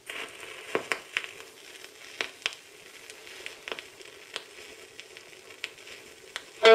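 Stylus tracking the run-in groove of a 1966 Emidisc lacquer acetate 45 before the music begins: steady surface hiss with irregular crackles and sharp pops, the loudest in the first few seconds.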